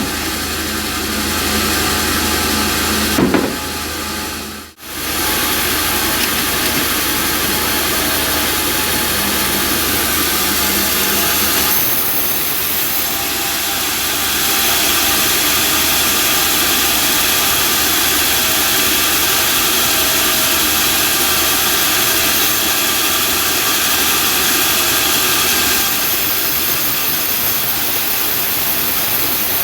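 Homemade band sawmill running and sawing timber: a loud, steady machine noise that drops out sharply for a moment about five seconds in and grows a little louder from about twelve seconds in.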